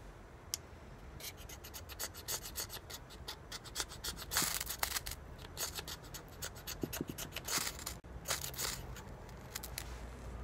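Ferrocerium rod scraped hard with the spine of a knife to throw sparks onto fatwood shavings: many quick rasping strokes, with a few longer, louder ones about four and a half and eight and a half seconds in.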